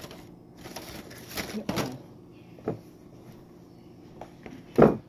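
Plastic takeout sushi tray handled, rustling and crinkling, then set down with a loud knock near the end.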